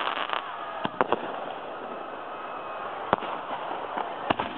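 Aerial fireworks display: a handful of sharp bangs, three close together about a second in, another near three seconds and one near the end, over a steady noisy background of the show.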